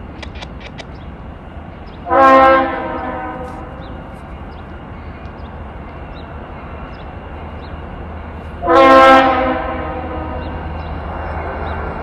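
Diesel freight locomotive's air horn sounding two short multi-note blasts about six seconds apart as the train approaches, over a low rumble from the train that builds near the end.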